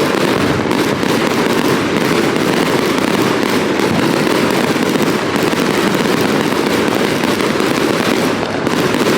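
Consumer fireworks going off in a loud, continuous, dense crackle.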